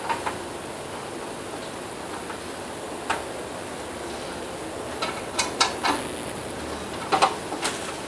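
Scattered light clicks and taps from an exercise-bike console being handled and seated on its upright post, one about three seconds in and several more in the second half, over a steady hiss.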